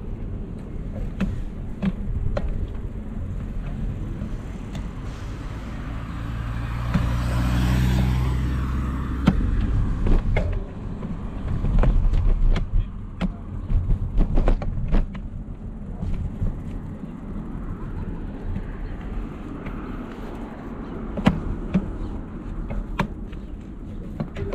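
Riding noise from a moving bicycle: a steady low rumble with frequent rattling clicks and knocks. An engine swells past about six to nine seconds in.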